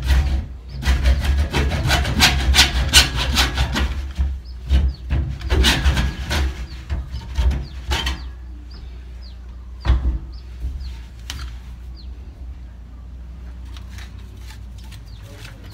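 Hacksaw cutting through PVC water pipe in quick back-and-forth strokes for about eight seconds, a few more strokes about ten seconds in, then the sawing stops.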